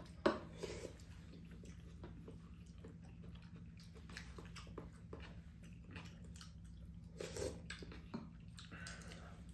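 Quiet eating sounds at a meal of soup and rice: chewing and soft mouth noises with scattered small clicks of spoons and chopsticks against bowls, over a faint steady low hum. A sharp click comes just after the start.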